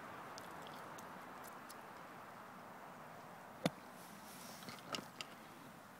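A golf club strikes bunker sand in one sharp thud about three and a half seconds in, a bunker shot that blasts the ball out with a spray of sand; a few fainter ticks follow a second later over a steady background hiss.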